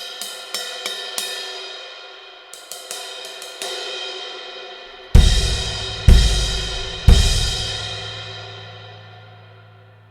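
Pergamon cymbals being struck with a stick: a run of light strokes about three a second, a brief pause and a few more, then three loud accented hits about a second apart, each with a low thud beneath it. The last hit is left to ring and fades away.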